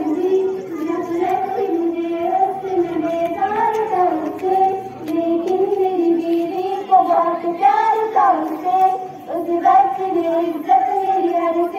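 Group of schoolchildren singing together in unison, a slow melody of held notes.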